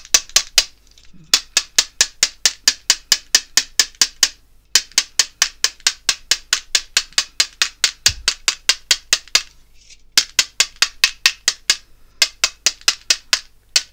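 A white Posca paint pen rapped hard against a clear plastic ruler, spattering white paint snow off its tip. Sharp taps come about six a second, in runs of a few seconds with three short pauses.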